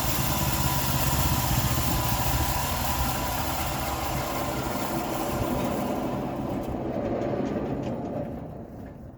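Sawmill engine running steadily, then dying down near the end.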